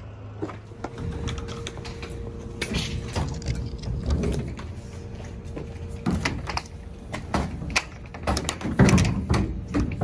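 Lengths of gray PVC conduit clattering and knocking against each other and the pickup bed as they are loaded, over a low rumble. A steady hum runs through the first half.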